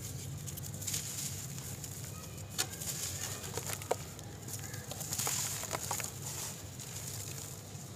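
Dry, crumbly brown dirt being squeezed and broken apart by hand and sifting down: a gritty rustle with a few sharp crackles as clumps snap.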